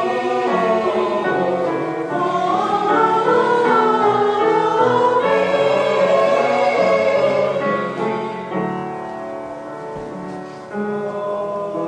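A choir singing a hymn-like piece with piano accompaniment, growing quieter in the last few seconds.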